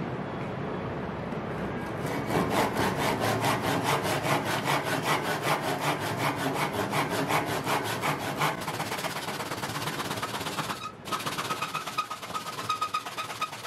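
Hand saw cutting across a wooden board in a miter jig, rasping in fast, even strokes that start about two seconds in. The strokes break off briefly near the end, then start again.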